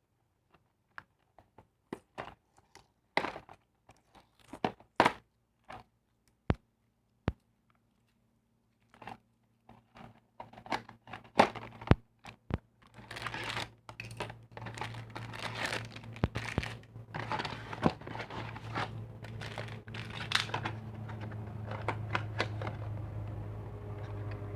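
Packaging of a Beyblade toy being handled and opened: scattered sharp taps and clicks, then from about halfway continuous crinkling and tearing of the wrapping, over a faint low hum.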